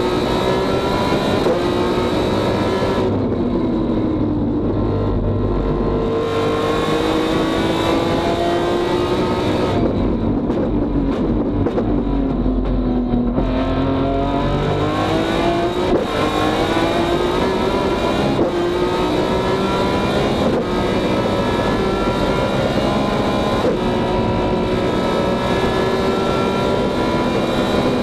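BMW S54 3.2-litre straight-six in an E36 race car, heard from inside the cockpit at racing speed: the revs climb and drop sharply with each sequential-gearbox upshift. Twice the engine comes off the throttle, its pitch sinking through downshifts for a few seconds before it pulls hard again.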